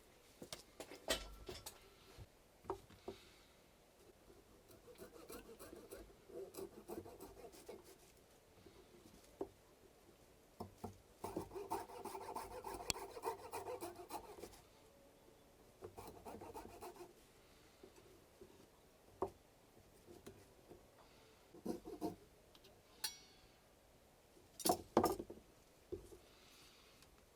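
Handling noises of hands-on work: intermittent rubbing and scraping in stretches of a few seconds, with scattered sharp clicks and knocks, the loudest a cluster near the end.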